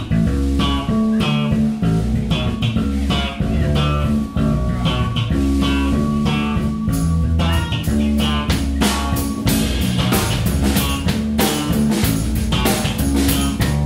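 Live rock band jamming: guitar and bass guitar over a drum kit, with steady drum hits.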